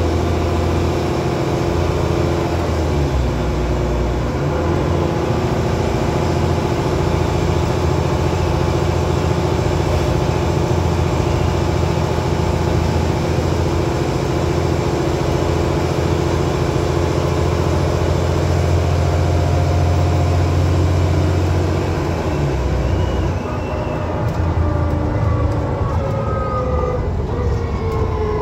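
Transbus Trident double-decker bus engine and drivetrain heard from inside the lower deck while under way: a loud, steady low drone with whining tones. The note changes about four seconds in, eases off briefly later on, and near the end the whining tones glide downward.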